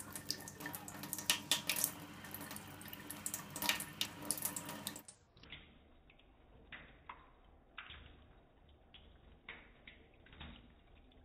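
Thin stream of water from a kitchen tap splashing into a stainless steel sink while a Bengal cat laps at the stream, with many quick splashy clicks. About five seconds in the sound turns duller and quieter, leaving scattered drips and splashes.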